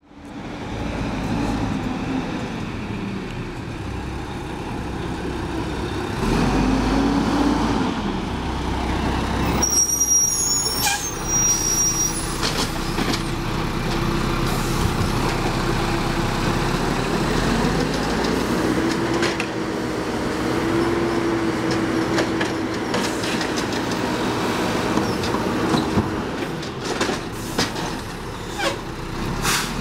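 Mack LE refuse truck with an Amrep automated side-loader running at the curb, its diesel engine revving up and down several times as the hydraulic arm works. A burst of air hiss comes about ten seconds in, and a few sharp knocks near the end.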